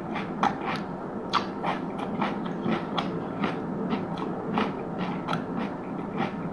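Close-miked chewing of crunchy food, with sharp, crisp crunches coming irregularly, two or three a second.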